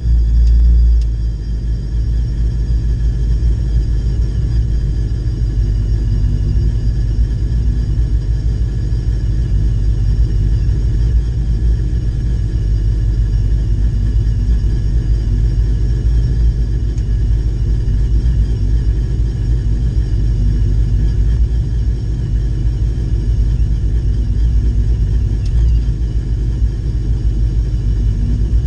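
Ram pickup truck's engine running at a steady idle, heard from inside the cab as the truck creeps along at low speed. A little louder for about the first second.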